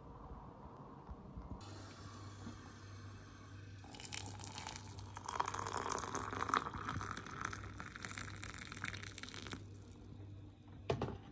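Water poured from a kettle into a ceramic mug over tea bags. The pouring starts about four seconds in and stops shortly before the end. A low steady hum runs underneath, and a short knock comes near the end.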